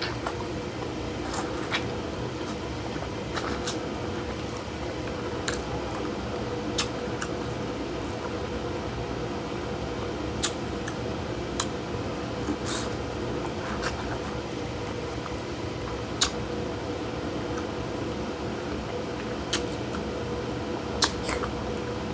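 Someone eating a saucy crawfish boil: wet, squishy mouth and hand sounds with scattered sharp clicks and smacks, over a steady hum.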